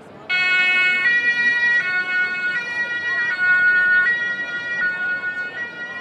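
Two-tone emergency-vehicle siren, the German Martinshorn, cutting in suddenly a moment in. It alternates between a high and a low note about every three-quarters of a second and grows fainter toward the end.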